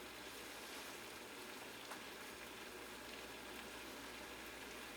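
Sauce simmering in a pan: a faint, steady bubbling hiss with an occasional tiny pop.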